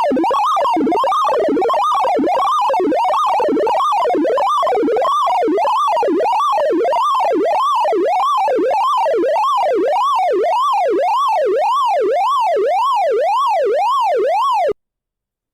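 Synthesized sorting-algorithm sonification of a cocktail shaker sort: a tone whose pitch follows the array values being accessed. It glides up and down about twice a second, once for each forward and backward pass. The sweeps are cluttered at first, then clean as the array nears sorted order, and the sound cuts off suddenly near the end.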